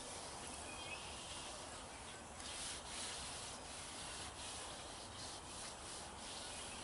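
Hands rubbing and sliding over the worn rubber tread of a semi-truck tire, feeling for flat spots; faint, scratchy strokes come and go.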